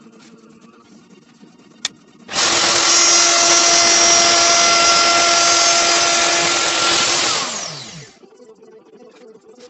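A sharp click, then an electric power tool runs at full speed for about five seconds. It is switched off and spins down, its whine falling away.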